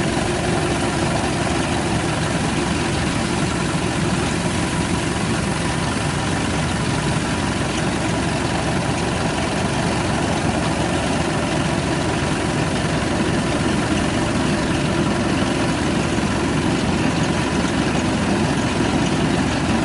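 Kubota DC-93 combine harvester running steadily while cutting rice in a flooded paddy: a constant engine and machinery drone with faint steady tones and no breaks.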